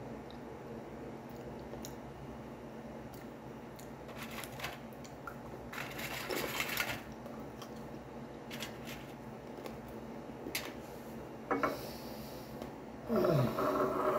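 Quiet sounds of a person eating biscuits at a table: scattered crunches, clicks and rustles over a steady low hum. Just before the end comes a short sound that falls steeply in pitch.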